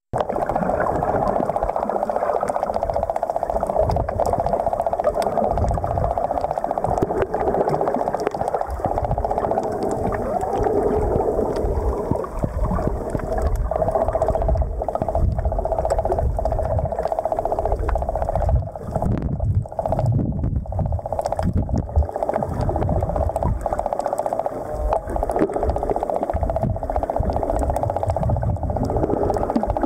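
Muffled underwater sound: a steady droning hum with irregular low rumbles of moving water.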